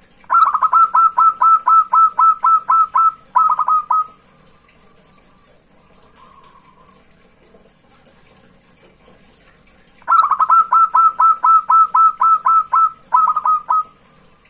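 Zebra dove (perkutut) singing its rapid cooing song twice: a quick run of about a dozen clipped notes, a short break and a few more notes, then a pause of about six seconds before the second song. A faint steady hiss runs underneath.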